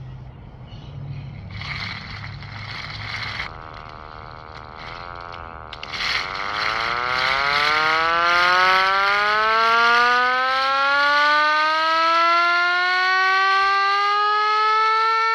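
Vintage WWII air raid siren winding up: after a low rumble and a short burst of noise, about six seconds in a wail starts that rises steadily in pitch and grows louder, levelling off near the end.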